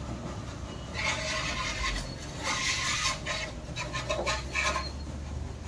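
Engine oil dipstick being handled to check the level after an oil fill: several short bursts of rubbing and scraping as it is drawn from its tube, wiped and slid back.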